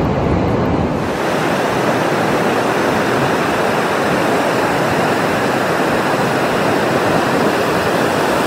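Ocean surf on a sandy beach: a steady rush of breaking waves, with a low rumble that drops away about a second in.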